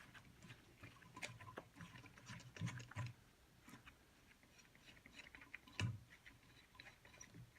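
Faint scattered metal clicks and taps from hand work on a small-block Chevy cylinder head, a valve spring compressor being worked and valve parts handled. A slightly louder knock comes about three seconds in and another near six seconds.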